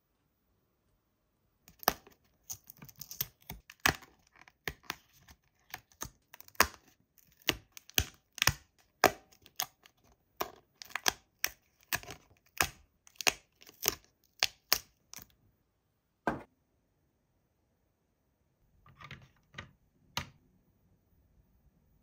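Die-cut cardboard pieces being popped out of a printed punch-out sheet by hand: a quick run of sharp snapping and small tearing clicks, two or three a second. After a pause come one louder snap and, later, a little rustling and a last click.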